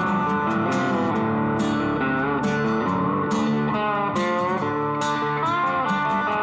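Background music: a guitar-led track with plucked notes in a steady rhythm and several notes bent or slid in pitch.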